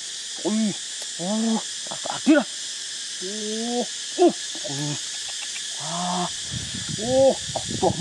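Parakeet chicks in the nest calling: about a dozen short calls in quick succession, each rising and then falling in pitch, over a steady high hiss.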